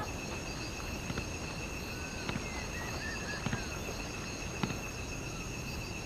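Night ambience of insects chirring steadily at a high pitch, with a few short chirping calls and occasional faint clicks.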